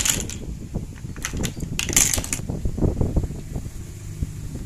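Plastic wrapping on a pack of toy building blocks crinkling as it is handled, in two short bursts: one at the start and one about two seconds in. Low handling rumble and light clicks run underneath.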